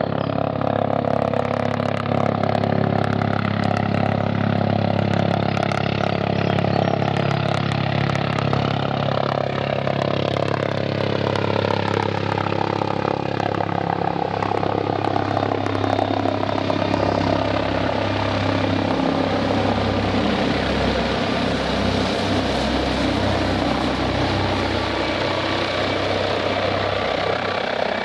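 MD 902 Explorer police helicopter, a twin-turbine NOTAR type with no tail rotor, flying low overhead on its approach to land: a steady rotor and turbine noise. Several of its tones slide slowly down in pitch as it passes, and a thin high turbine whine comes in about halfway.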